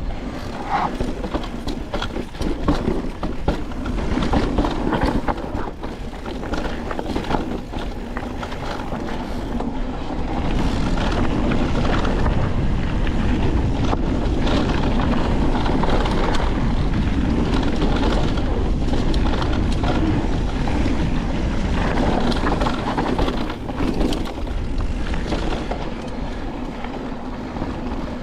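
Niner WFO e9 electric mountain bike rattling and clattering over a rough dirt trail on a descent, tyres crunching over rocks and brake bumps, with a steady low rumble underneath; it gets louder about ten seconds in.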